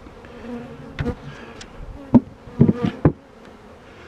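Honeybees buzzing in a steady hum around an open hive, with a few sharp knocks, the loudest about two seconds in and a quick run of them near three seconds.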